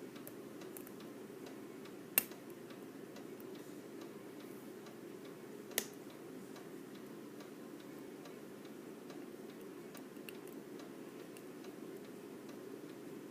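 Lock pick working the pins of a challenge lock under tension: faint scattered ticks with two sharper clicks a few seconds apart. A steady low hum sits underneath.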